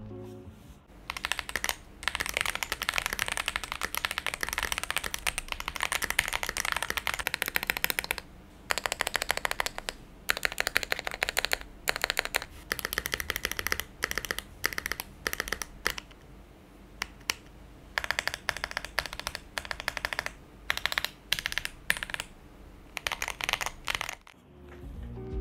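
Mechanical keyboard typing: a Rexus Daxa M71 in a gasket-mounted acrylic-plate build with stock Aflion Shadow switches, modded stabilisers, Tai-Hao keycaps, a tape mod and case and plate foam. Fast runs of keystrokes are broken by short pauses.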